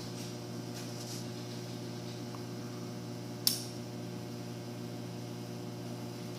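Steady low electrical hum with a ladder of evenly spaced overtones, and a single sharp click about three and a half seconds in.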